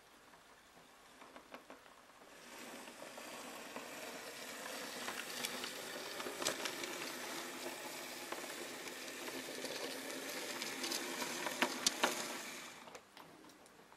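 Magic Train On30 model diesel locomotive running on the track: the steady whirr of its small electric motor and gears, with a few sharp clicks. It starts about two seconds in and stops near the end.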